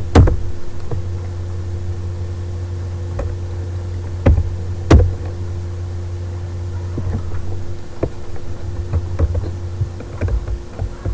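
Steady low electrical hum, with a few sharp clicks: one just after the start and two around the middle.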